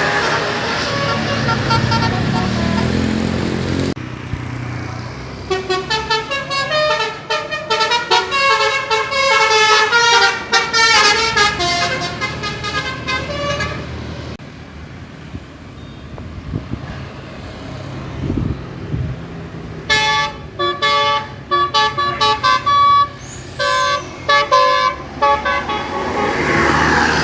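Buses sounding telolet horns: multi-tone air horns playing quick, choppy strings of short notes in a tune-like pattern, in two long bouts with bus engines running during the lull between them.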